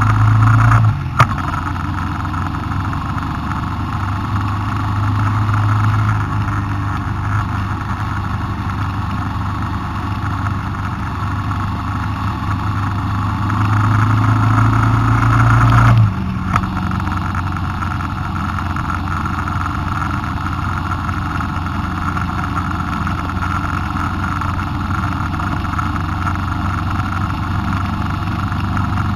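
Engine and road noise heard from on board a vehicle driving along a road. The engine note swells and then drops abruptly about halfway through, as when the throttle is closed or a gear is changed, and a single sharp click comes about a second in.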